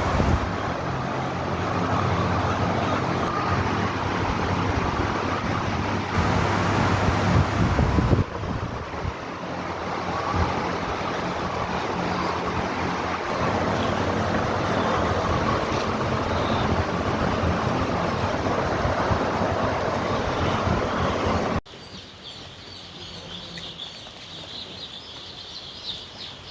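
A loud, steady rushing noise with a low hum, like a fan or a motor, that cuts off abruptly about three-quarters of the way in. Then a flock of poultry birds keeps up a dense, high cheeping.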